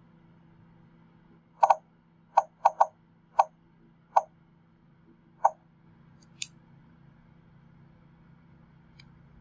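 A string of sharp clicks, seven or eight at uneven spacing over about four seconds and then a fainter one, as a Sony Vaio Jog Dial USB remote is worked to step through on-screen menus. A faint steady hum lies under them.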